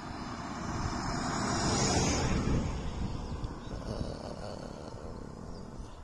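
A road vehicle passing by: a rushing noise that swells to a peak about two seconds in and then fades away.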